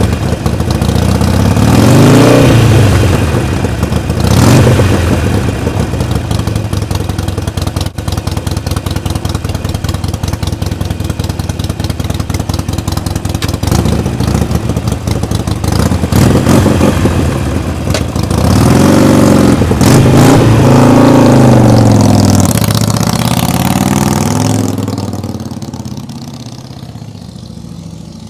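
Harley-Davidson Iron 883's air-cooled V-twin running through aftermarket silencers. It is blipped three times early, idles steadily, then is revved several times again before the sound drops much quieter near the end.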